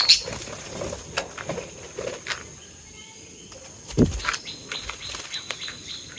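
Small birds chirping in short, sharp notes mixed with clicks, with a dull thump about four seconds in. After the thump come quick high chirps, several a second.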